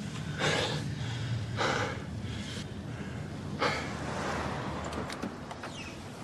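A person breathing hard, with four short, sharp breaths in the first four seconds, over the low steady hum of a car's interior.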